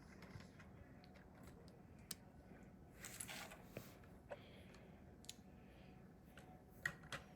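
Faint, scattered clicks of plastic Lego bricks being handled and pressed together, with a brief rustle about three seconds in.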